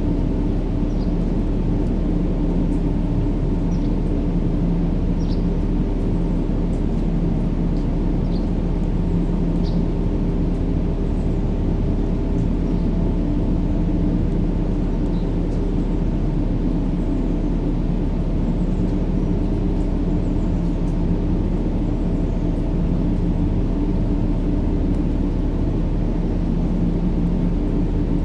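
Steady low rumbling white-noise track for a baby's sleep, with a constant hum running through it. Faint short high chirps come now and then in the first ten seconds or so.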